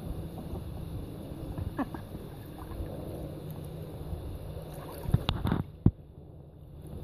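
Cayuga and Swedish ducks paddling and splashing in a plastic kiddie pool of water, with wind rumbling on the microphone. About five seconds in comes a short cluster of louder splashes or knocks, then one sharp knock.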